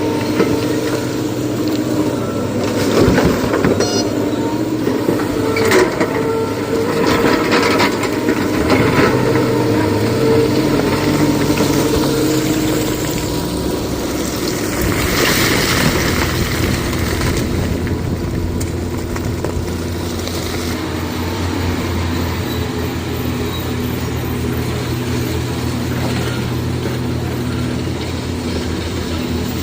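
Heavy diesel engine of quarry machinery running steadily, with a cluster of knocks and clatter a few seconds in and a short rise and fall in engine pitch around ten seconds in.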